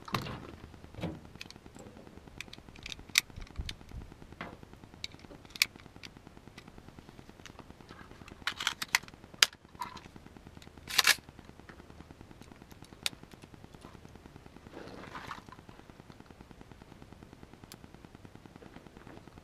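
Smith & Wesson M&P15 AR-15 rifle being handled: a dozen or so scattered sharp clicks and clacks, the loudest in a cluster about nine to eleven seconds in, and a softer rustle around fifteen seconds.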